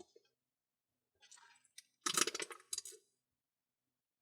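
Small plastic toy pieces and a slime container being handled: a short run of light clicks and clinks about two seconds in, amid near quiet.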